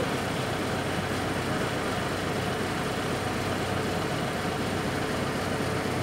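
Telehandler's diesel engine running steadily, a constant low hum under a noisy drone.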